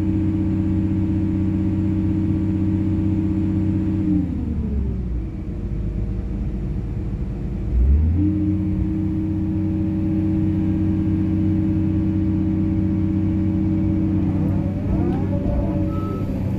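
Excavator's diesel engine running at steady high revs, dropping to idle about four seconds in and revving back up about four seconds later. A single alarm beep sounds near the end.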